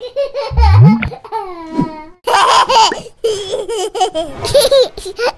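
A baby laughing and giggling in repeated short bursts, with a low rising tone about half a second in and a few falling tones around a second and a half in.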